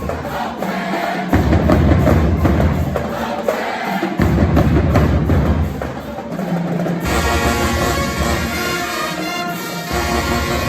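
Music with loud drumming on a steady beat. About seven seconds in it switches abruptly to sustained, held instrumental chords.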